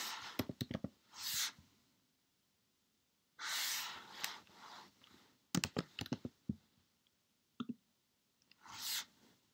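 Computer keyboard keys and mouse clicking in short quick clusters, with several soft rushes of breath-like noise close to the microphone in between.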